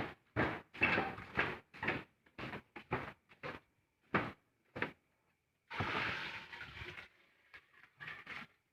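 A series of short, irregular knocks and clatters, about a dozen in the first five seconds, then a longer rustling scrape about six seconds in, followed by a few faint knocks.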